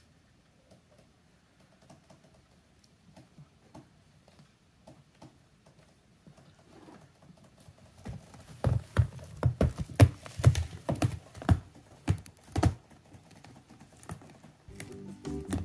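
A cat rolling on a wooden floor and pawing at a fabric sofa: faint scattered taps at first, then from about halfway a run of irregular knocks and scuffs as its body and paws hit the floor and sofa. Background music comes in near the end.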